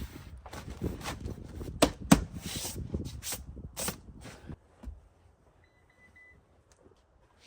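Rustling and shuffling of bedding and gear being handled in a small van interior, with two sharp knocks about two seconds in. The handling stops after about four and a half seconds.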